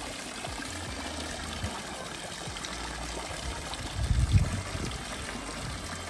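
Water trickling and pouring in a thin stream from a galvanized stock tank's spillway chute into an above-ground pool, as the tank fed by the pool's filter pump first fills to overflowing. A brief low rumble about four seconds in.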